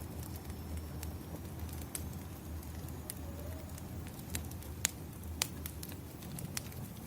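Wood fire crackling: a steady low rumble with scattered sharp pops, two louder pops about five seconds in.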